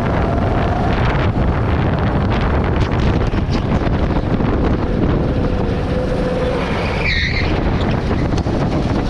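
Go-kart engine running at speed under heavy wind and rushing noise, with a brief high tyre squeal about seven seconds in.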